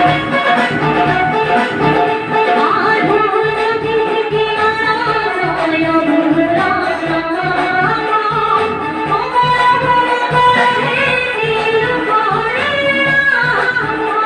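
A woman sings a melody into a microphone, accompanied by a Casio electronic keyboard that plays sustained chords over a steady beat.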